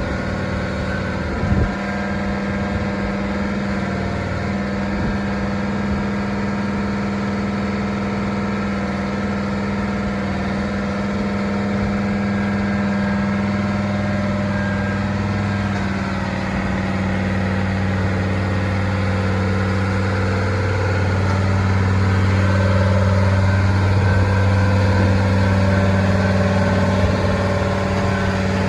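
An engine running steadily with a constant low hum, as at idle. There is a brief click about a second and a half in.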